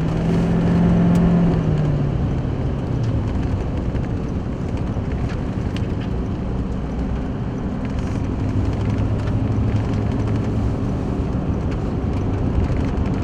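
A car's engine and tyre noise heard from inside the cabin while driving; the engine note drops about two seconds in, then a steady road rumble carries on.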